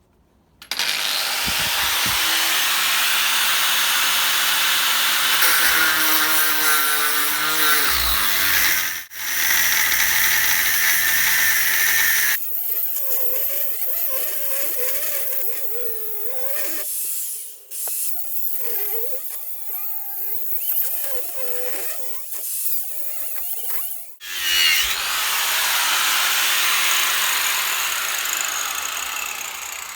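Electric angle grinder cutting into a heavy-duty transformer. It runs loud and steady for about eleven seconds, then thins to a higher, wavering whine with a few brief dips until about 24 s, then runs loud again almost to the end.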